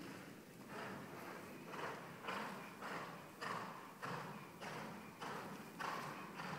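Ridden horse moving around a sand arena, its hoofbeats on the sand coming in a steady rhythm of about one stride every 0.6 seconds.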